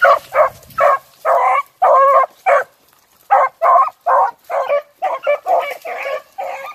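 Beagles baying on a rabbit's scent trail: a run of short, loud bays that come quicker and run together from about five seconds in.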